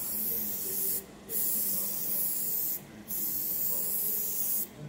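Gravity-feed airbrush spraying yellow paint with a steady high hiss, broken off briefly twice, so the spray comes in bursts of about a second and a half.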